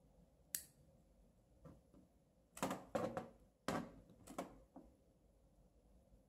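A sharp snip of a micro nipper cutting a jumper wire lead, followed by several small clicks and taps of fingers handling a plastic solderless breadboard.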